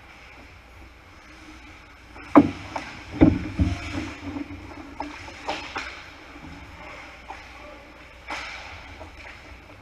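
Ice hockey play in an echoing rink: several sharp knocks of sticks, puck and boards, the loudest about two and a half seconds in, over a steady rink hum.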